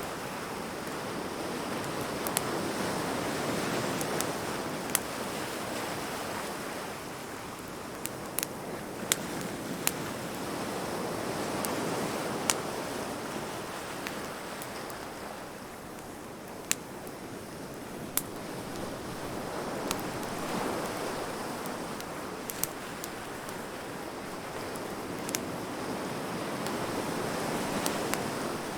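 Wood bonfire crackling, with sharp, irregular pops every second or two, over surf that swells and recedes about every eight seconds as waves wash in.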